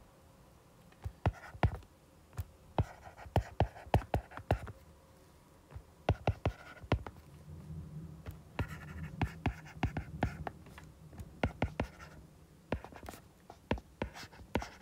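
Stylus writing on a tablet's glass screen: clusters of sharp taps as the tip touches down, with soft scratchy strokes between them.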